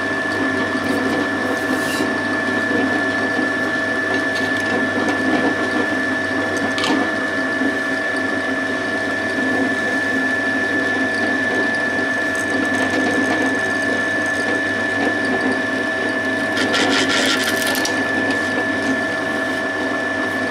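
Pillar drill running with a steady whine and hum while drilling 5 mm holes in an aluminium plate, with a couple of single clicks and a short rattle near the end.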